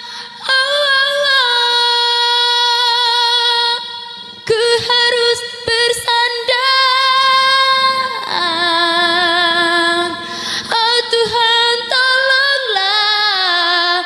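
A young woman singing an Indonesian pop ballad a cappella, with no accompaniment, holding long notes with vibrato. About four seconds in she breaks briefly, and about eight seconds in her voice steps down to a lower held note before climbing again.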